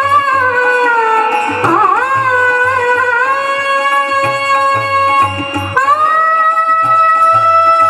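Marathi bhajan music: a long held melody line that dips and then steps up to a higher held note about six seconds in, over a steady hand-drum beat.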